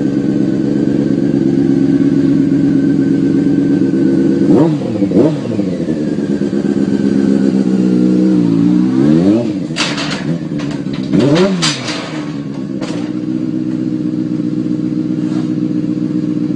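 Motorcycle engine idling and blipped through three rising-and-falling revs, with a cluster of sharp clattering knocks about ten to twelve seconds in as the bike falls off the loading ramp onto the pavement. An engine keeps idling steadily afterwards.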